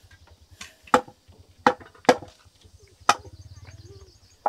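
Four sharp, irregularly spaced blows on wood, each with a short ring, over a low steady hum.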